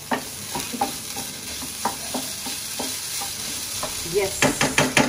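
Keema (minced meat) sizzling in a pan, with a utensil clicking against the pan as it is stirred; the clicks come quickly together near the end.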